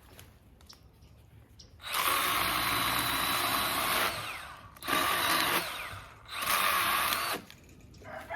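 Milwaukee M12 hatchet, a small battery-powered pruning chainsaw, running and cutting cherry wood in three bursts: one about two seconds long starting about two seconds in, then two shorter ones.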